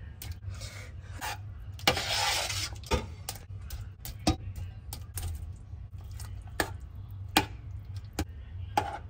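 A metal spoon clinking and knocking irregularly against a stainless steel pot and a ceramic bowl as meatballs are spooned into tomato sauce and stirred, with a longer scrape about two seconds in. A steady low hum sits underneath.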